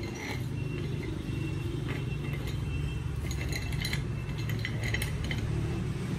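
Scattered metal clinks and small clicks from a heavy steel gear puller being handled, its screw worked up and down, over a low steady rumble.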